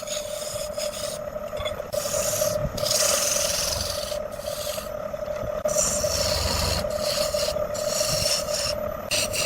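Wood lathe running with a steady hum while a turning tool cuts the spinning wood, a rough scraping sound that breaks off briefly several times as the tool comes off the work.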